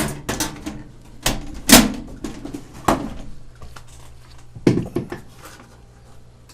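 Irregular knocks and clunks of hard objects being handled, about eight in all and the loudest a little under two seconds in, over a steady low hum.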